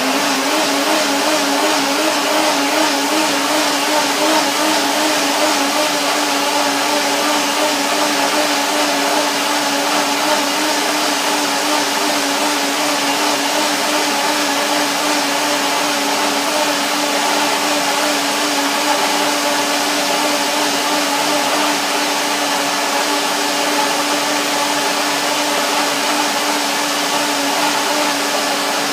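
Countertop blender with a glass jar running steadily at one even motor pitch, puréeing Swiss chard, banana and apple-lemon juice into a green smoothie.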